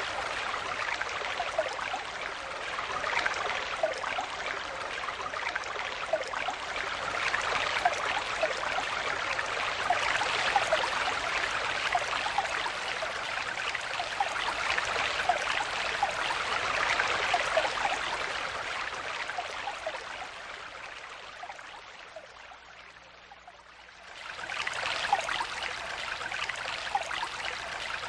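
Stream water flowing and babbling, a steady rush dotted with small bubbling plops. About two thirds of the way through it fades down to a quiet low, then comes back sharply a few seconds later.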